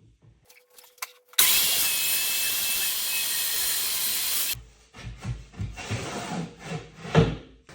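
A loud, steady hissing noise lasting about three seconds and ending abruptly, then a run of irregular knocks and bumps with one sharp knock near the end, like wooden parts being handled and set down.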